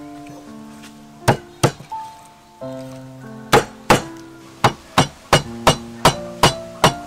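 Meat cleaver chopping through beef tripe onto a wooden chopping block: eleven sharp chops, first two pairs, then a steady run of about three a second. Background instrumental music with held notes plays under them.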